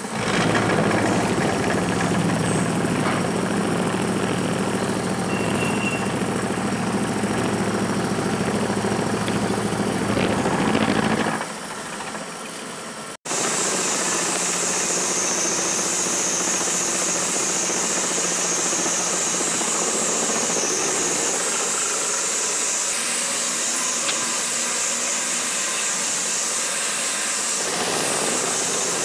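Vertical milling machine running, its end mill cutting a metal block: steady machine hum and cutting noise that drops off about eleven seconds in, followed by a steady high-pitched cutting whine as the end mill works through the block, throwing chips.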